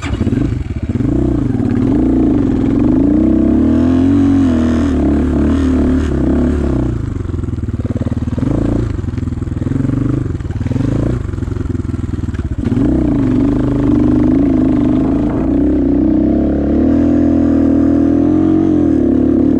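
Enduro motorcycle engine revving up and down while riding off-road, its pitch rising and falling repeatedly, with a brief dip about twelve seconds in.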